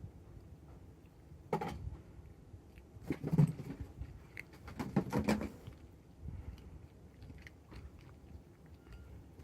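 A nine-week-old kitten eating its breakfast: clusters of wet chewing and crunching with small clicks, in bursts about a second and a half in, around three seconds and around five seconds, then fainter ticks.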